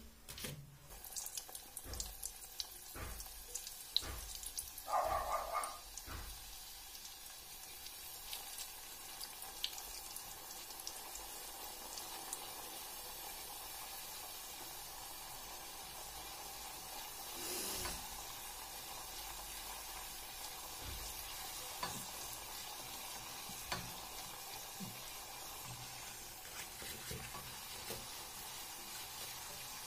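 Rose-shaped khvorost dough deep-frying in hot oil in a steel saucepan, a steady sizzle. A few knocks and scrapes from a wooden spatula against the pot in the first few seconds.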